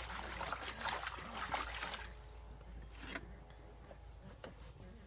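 Water sloshing and trickling for about two seconds, then quieter, with a few light knocks.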